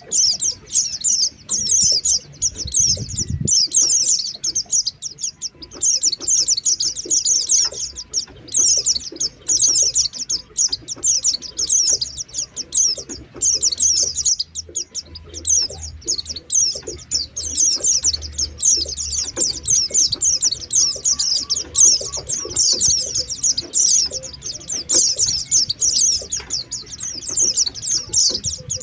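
White-eyes (pleci) chirping rapidly and almost without pause, a dense chatter of short, very high-pitched notes: a lure call used to draw wild white-eyes in.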